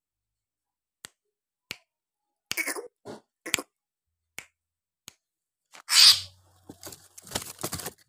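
Caged Javan myna (jalak kebo) and its bamboo cage: a few single sharp clicks, then short harsh rasping bursts, the loudest about six seconds in and a cluster near the end.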